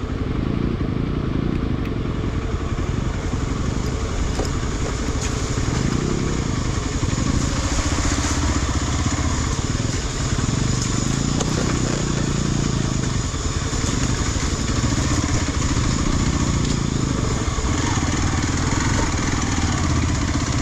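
Single-cylinder 200 cc motorcycle engine running steadily at low speed while the bike rides over a rough dirt trail.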